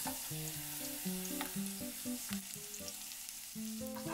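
Chopped garlic hitting hot oil in a nonstick wok and frying: a sizzle that starts suddenly as it goes in and holds, with scattered crackles. Light background music plays underneath.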